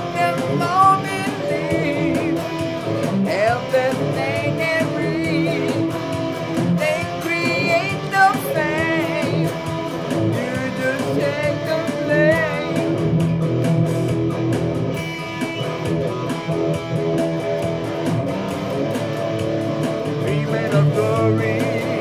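PRS SE electric guitar playing a lead break of bent, wavering notes over a steady drum-machine beat.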